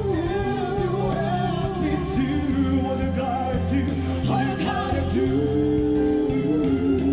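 A slow pop ballad duet sung by a male and a female singer over instrumental backing, the voices wavering with vibrato. About five seconds in, two voices hold long notes together in harmony.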